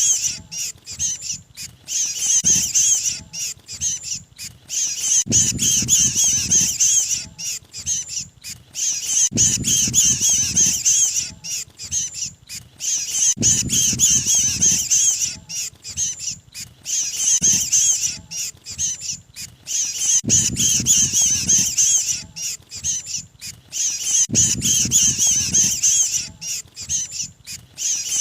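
Bird-lure recording of mantenan 'kejepit' calls: the excited alarm and distress chatter of a trapped bird, used to pull other birds in. Rapid high-pitched calls come in bursts of a couple of seconds, repeating about every four seconds, with a low rumble under many of the bursts.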